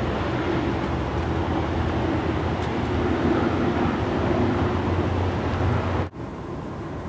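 Steady low rumble with a constant hum from a distant vehicle engine. It cuts off abruptly about six seconds in, leaving quieter outdoor background.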